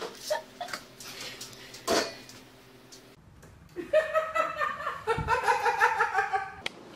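A few light knocks and clatter, then a woman laughing in quick high-pitched bursts for nearly three seconds.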